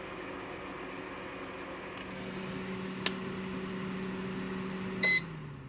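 Electric fan heater running with a steady motor hum, a single click about three seconds in. Near the end its control gives a short electronic beep as the off button is held down, and the fan motor starts winding down, its hum falling in pitch.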